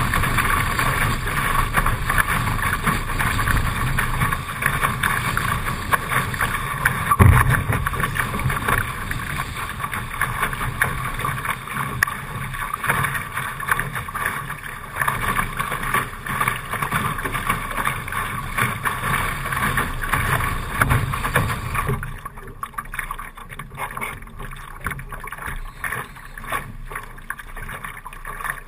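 Water rushing and splashing along the hull of a Laser sailing dinghy as the bow drives through choppy water, with wind gusting on the microphone. A single hard slap of a wave on the hull comes about seven seconds in. About three-quarters of the way through, the sound drops to a lighter, quieter wash of water and wind.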